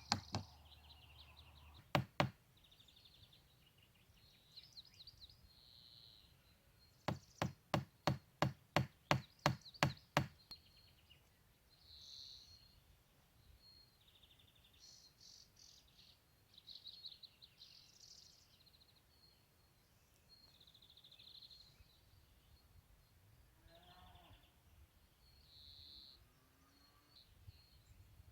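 A tool striking wood: a pair of blows about two seconds in, then a quick run of about a dozen strikes, roughly three a second, from about seven to ten seconds. Birds chirp throughout.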